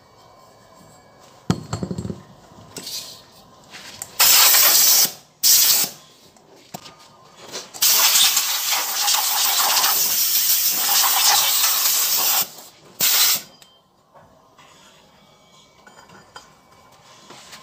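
Compressed-air blow gun hissing into a scooter's CVT belt housing to blow out dust: two short blasts, then one long blast of about five seconds and a last short one. A brief knock of metal parts about a second and a half in.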